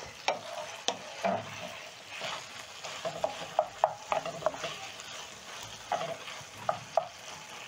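A wooden spatula stirring and scraping beef and peppers in a frying pan over a steady sizzle of the saucy stir-fry. There are frequent short knocks of the spatula against the pan.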